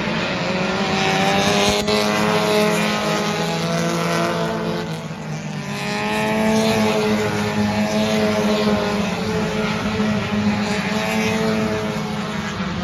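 Several V6 stock car engines at racing revs as a pack laps the oval, their pitches gliding up and down as the cars pass and lift for the turns. The sound dips about five seconds in and swells again as more cars come by.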